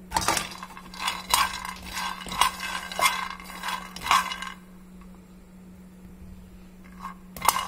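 Raw peanuts rattling and scraping in a dry pan as they are stirred with a wooden spatula while dry-roasting: a run of clattering strokes for about four and a half seconds, a lull, then another stir near the end. A steady low hum runs underneath.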